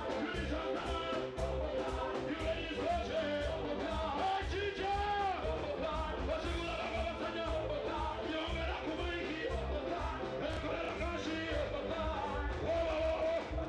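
Live music played loud through a PA: a male vocalist singing into a microphone over a band with a steady beat.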